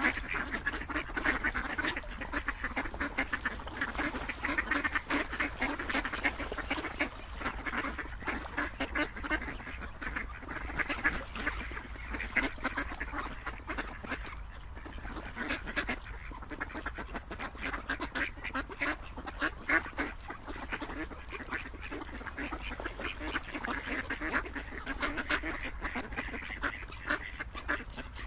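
A flock of ducks quacking continuously, many short calls overlapping, over a steady low rumble.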